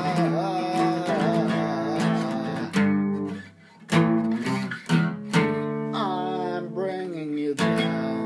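Acoustic guitar strummed in chords, with a man's voice singing over it in places. About three seconds in the strumming briefly stops, then comes back with a few sharp chord hits.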